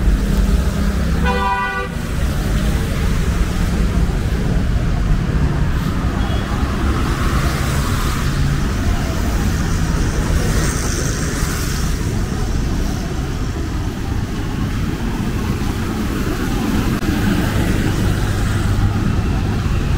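Traffic on a wet city road: vehicles passing with a steady tyre and engine noise that swells and fades, and a short vehicle horn toot about a second in.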